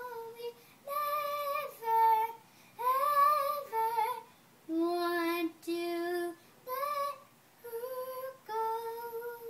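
A young girl singing solo without accompaniment: a string of sung notes about a second each with short breaths between, ending on a long held note near the end.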